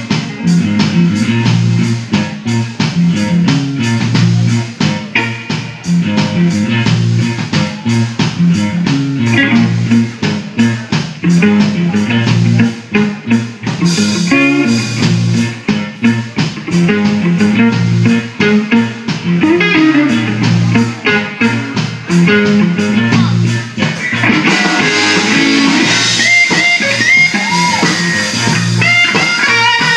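Live blues trio of electric guitar, bass guitar and drums playing with a steady beat. From about 24 seconds in, the electric guitar steps up into a lead line of high, bent notes.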